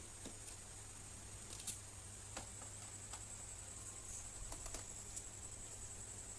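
A few faint, irregular clicks and small taps from a screwdriver and small screws being worked out of a laptop's plastic base, over a steady low hiss.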